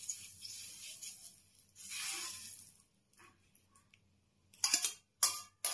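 A wire whisk scraping softly through beaten egg on a non-stick griddle plate, in two brief spells, then a few sharp metal clinks of the whisk against a steel bowl near the end.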